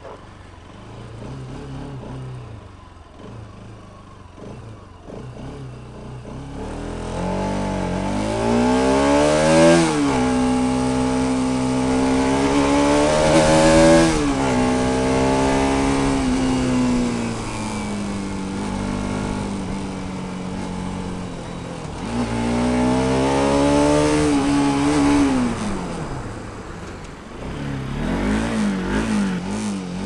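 Bajaj Pulsar 200RS single-cylinder engine breathing through its stock air filter while the bike is ridden. It runs quietly at first, then accelerates, its pitch climbing and dropping back at upshifts, settles into a steady cruise, pulls again, and eases off near the end.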